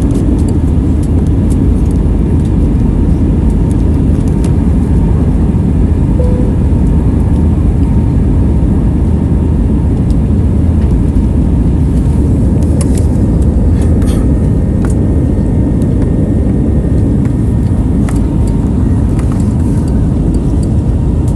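Airbus A320neo cabin noise at takeoff: a loud, steady low rumble of the engines and airframe with a faint steady whine and occasional light rattles.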